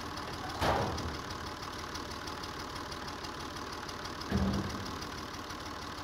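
Massey Ferguson 135 tractor engine running steadily at idle while the Danelander hopper is worked by its hydraulic cylinder, with two heavy clunks: one under a second in and one about four seconds in as the hopper comes down.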